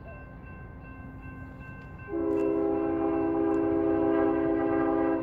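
Horn of a Union Pacific GE C45ACCTE (ES44AC) freight locomotive, sounding one long, steady multi-note blast. It starts suddenly about two seconds in as the train approaches a grade crossing, a crossing warning.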